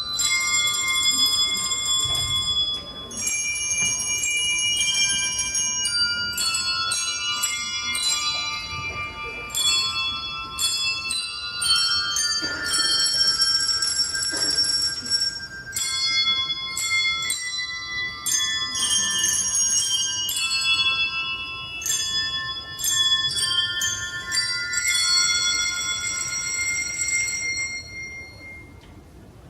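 A hand bell ensemble playing a tune: many tuned hand bells are struck one after another and in chords, each note ringing on. A final chord rings for about three seconds and is cut off sharply near the end.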